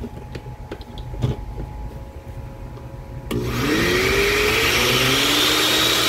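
Oster blender motor base switched on about three seconds in, with no jar fitted, after a few light handling clicks. Its whine rises quickly and settles into a steady, high-pitched run. This is a test run after reassembly, and the blender runs in perfect condition.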